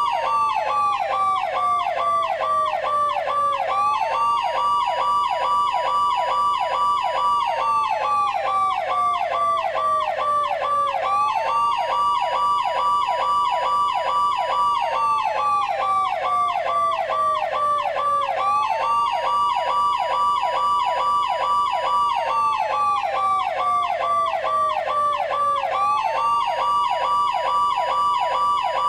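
Electronic police siren of the Machine RS cars from Seibu Keisatsu, played as a sound effect. A wail rises quickly, holds, then slides slowly down, repeating about every seven seconds. It is layered over a fast pulsing yelp that keeps going throughout.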